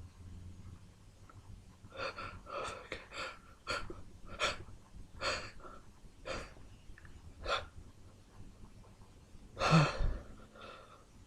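A person's sharp gasping breaths during a sneezing fit, about ten of them, coming further apart, then a loud sneeze near the end.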